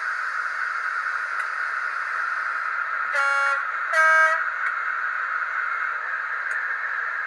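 DCC sound decoder in a Dapol N gauge Class 56 model locomotive playing the diesel idling through its tiny speaker, thin with no deep bass. About three seconds in it sounds the two-tone horn: two short blasts, the second a little higher and louder.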